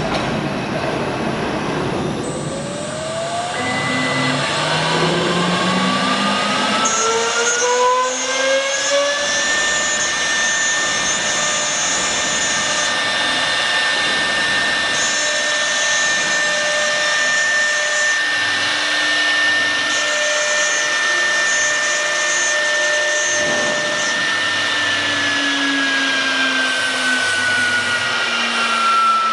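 CNC router spindle motor whining as it spins up, rising in pitch over the first several seconds, then holding a steady high whine before winding down near the end. A higher hiss comes and goes above it in several stretches.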